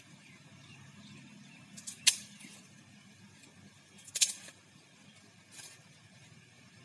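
Two brief sharp clicks about two seconds apart, over a faint low steady hum.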